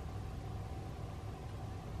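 A steady low hum with a faint, even tone above it, like a small motor or fan running.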